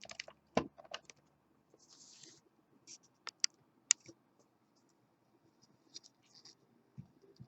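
Irregular small metallic clicks and taps of tweezers and tiny lock pins being worked out of a KABA Gemini lock cylinder, with a brief rustle about two seconds in.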